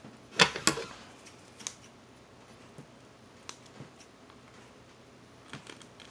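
Small plastic shipping cup being handled: two sharp plastic clacks about half a second in, then a few faint light ticks.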